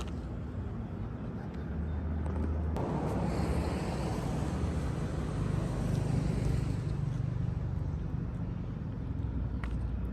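A motor vehicle's engine running with a steady low hum, joined by a louder rushing noise that swells about three seconds in and eases off around seven seconds.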